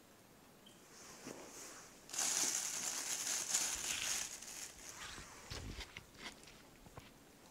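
Plastic bag rustling and crinkling for about two seconds, with scattered small clicks and one soft thud later.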